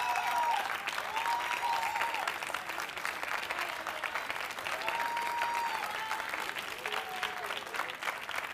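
Studio audience clapping steadily through a timed dare, with a few long held tones rising over the clapping now and then.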